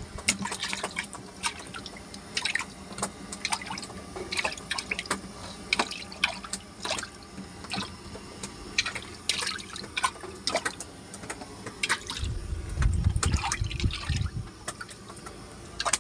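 Water splashing and dripping in a boat's fish-holding tank, stirred by a live fish darting about, in many small irregular splashes. A low rumble comes in about twelve seconds in, lasting a couple of seconds.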